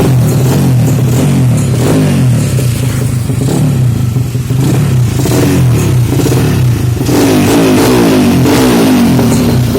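Honda Vario 125 scooter's bored-up single-cylinder engine, converted from fuel injection to a carburettor, running and being revved up and down, with its strongest rev about three-quarters through that falls back toward idle near the end.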